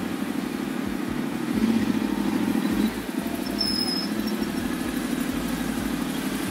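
Ducati Multistrada 1200 Enduro's L-twin engine running at low revs with a fast, even pulse as the bike rolls slowly. About one and a half seconds in it briefly picks up with a touch of throttle, then eases back just before three seconds.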